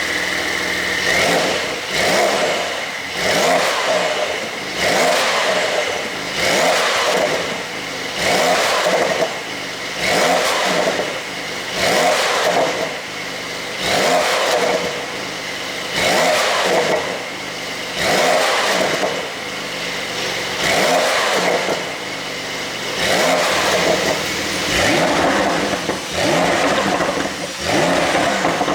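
Porsche 911 992 Carrera 4 GTS twin-turbo flat-six being blipped over and over through an open-flap exhaust, about once every second and a half, each rev rising and falling. Pops and crackles come on each lift-off from an ECU pop-and-crackle tune.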